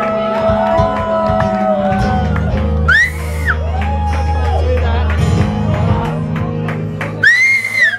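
Live acoustic guitar chords ringing under long held sung notes, with high arching whoops about three seconds in and again near the end, where the guitar stops.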